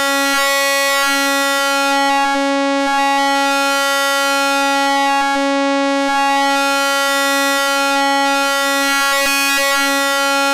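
A sustained note from the FM8 software synthesizer: a bright sawtooth-based FM tone held at one pitch, its upper overtones shifting now and then as a sine-wave operator is routed in to modulate it.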